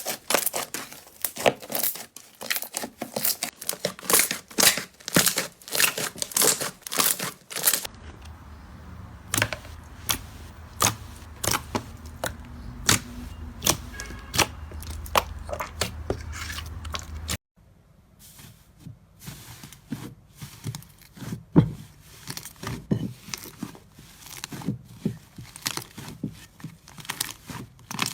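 Slime being pressed and pulled by hands, giving rapid sticky clicks, crackles and pops, in three separate clips that change abruptly about eight and seventeen seconds in. A low steady hum lies under the middle clip.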